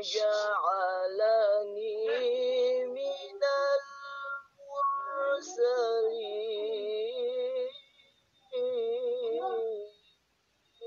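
A woman singing a melody with long, wavering held notes, stopping briefly about eight seconds in and again near the end.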